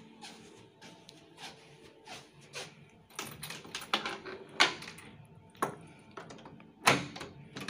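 A few soft footsteps, then a hotel room door's lever handle and latch clicking and clacking as the door is unlatched, with the loudest knocks about four and a half and seven seconds in.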